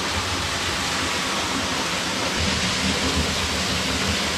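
Waterfall: water falling and splashing, a steady rushing noise.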